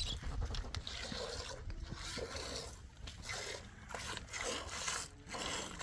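Milk squirting into a pail in short hissing strokes, about two a second, as livestock are milked by hand.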